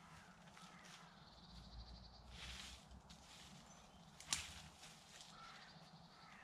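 Faint rustling of conifer branches being handled and pushed into a shelter frame, with one sharp snap about four seconds in. Small birds call faintly in the background.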